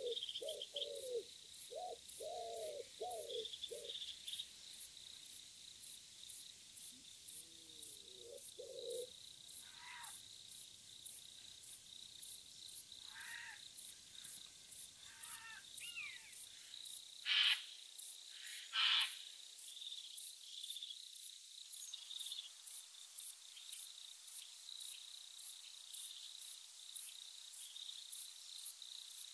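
Crickets chirping in a steady pulse of about two chirps a second, over a faint high steady whine. Wood pigeons coo in the first few seconds and again briefly a little later, and a few short bird calls come midway.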